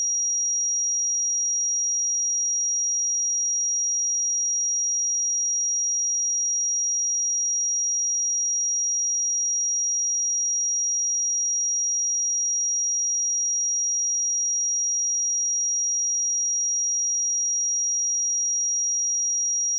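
Steady, unbroken 5713 Hz sine-wave test tone, a single high-pitched pure tone held at a constant level.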